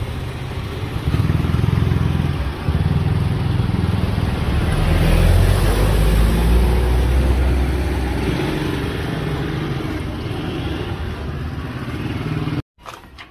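A motor vehicle engine runs close by with a steady low rumble that swells around the middle. It cuts off abruptly near the end, leaving a few faint knocks.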